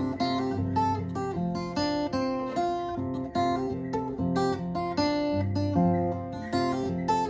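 Acoustic guitar played as a song's introduction: picked and strummed chords in a steady rhythm.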